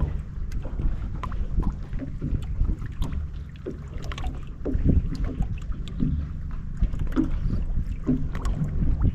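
Wind buffeting the microphone on a fishing boat, a steady low rumble, with scattered small knocks and ticks from the boat and tackle.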